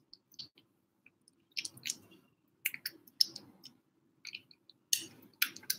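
A kitten eating wet canned cat food from a bowl: irregular wet smacking and chewing clicks, coming in small clusters about a second apart.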